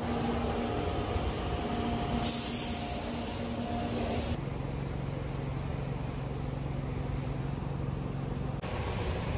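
Car wash ambience: a steady rumble of engines and machinery with a low hum, and a loud hiss lasting about two seconds near the middle. The sound shifts abruptly twice.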